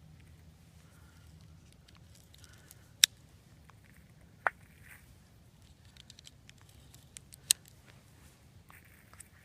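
Pistol cartridges being pressed one by one into a handgun magazine: three sharp metallic clicks, about 3, 4.5 and 7.5 seconds in, with lighter ticks and rattles between them.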